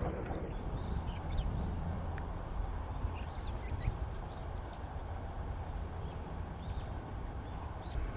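Oriental reed warbler singing faintly in short looping, chattering phrases, over a steady low rumble. A thin, steady high whine starts about half a second in and stops near the end.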